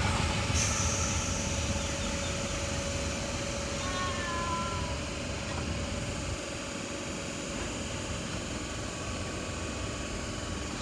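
Sydney Trains Waratah electric train running away into the distance, its rumble fading to a steady low hum from the stationary C-set train at the platform. A short few-note chirp sounds about four seconds in.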